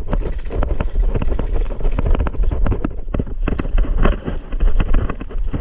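Irregular sharp knocks and clatter with a low rumble of wind buffeting the microphone, as of a player's gear and movement heard on a body-worn camera.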